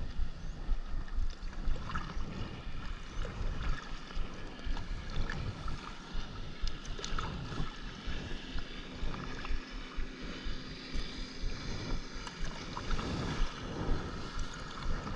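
Double-bladed kayak paddle dipping and pulling through seawater in repeated strokes, with splashing water and wind rumbling on the microphone.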